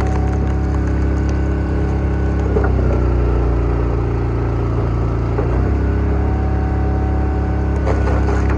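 Gas engine of a hydraulic log splitter running steadily, its note changing about a third of the way in and again about two-thirds in as the ram works, with a few sharp cracks of splitting wood.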